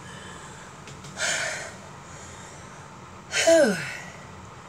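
A woman breathing hard after dancing: a sharp breath about a second in, then a breathy sigh whose voice falls in pitch.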